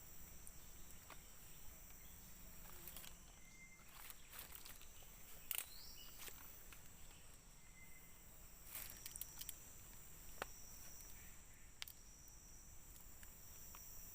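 Faint steady high-pitched drone of forest insects, with a few scattered soft clicks and rustles of handling close by, the loudest about five seconds in.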